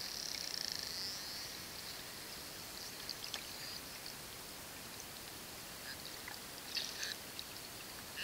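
Short-finned pilot whales vocalizing underwater: a buzzing pulsed call in the first second, scattered clicks around three seconds in, and a short squeaky call about seven seconds in.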